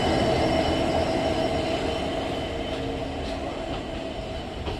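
Diesel engine of an Indian Railways WDP4D locomotive, an EMD 16-cylinder two-stroke, running close by with a steady hum over the rumble of the moving train, fading away as the two pass each other.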